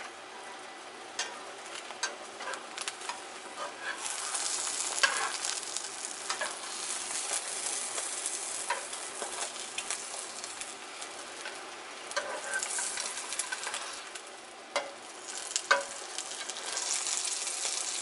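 Egg mixture sizzling in a nonstick frying pan as it is rolled into a Korean rolled omelette, with spatulas scraping and tapping against the pan in scattered sharp clicks. The sizzle grows louder from about four seconds in, eases off, and swells again near the end.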